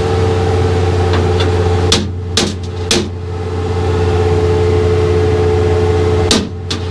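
A steady engine hum under several sharp metallic knocks on a steel workbench: three about two to three seconds in, and two more near the end.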